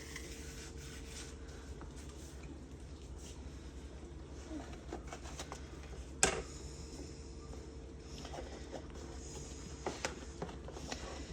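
Soft rubbing and light tapping of hands working cookie dough and cutters on a counter, with one sharp knock about six seconds in, over a faint steady hum.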